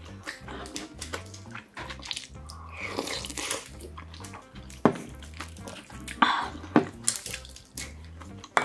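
Close-up eating sounds: a wooden spoon clicking and scraping against a clay pot and bowl, and a person slurping and blowing on hot soup broth, with a few sharper knocks of dishes. Soft background music runs underneath.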